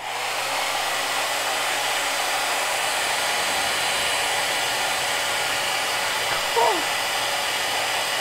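Handheld hair dryer running steadily, a loud even rush of air with a faint motor whine. About six and a half seconds in, a brief sound falling in pitch rises above it.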